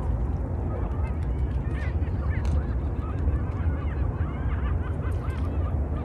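A large flock of migratory waterbirds calling all at once: many short, overlapping honking calls over a steady low rumble.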